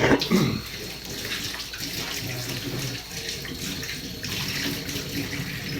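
Water tap turned on with a sudden gush, then running steadily into a sink as hands are washed.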